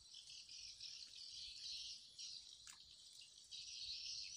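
Insects chirring in a high, pulsing chorus that swells and drops every half second or so. A single short falling note cuts across it about two and a half seconds in.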